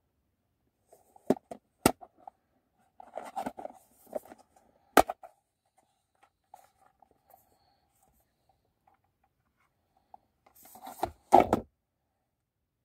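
A hard plastic case being handled: a few sharp plastic clicks and knocks with rustling between, as its lid is opened and a small figurine is lifted out. The loudest click comes near the end.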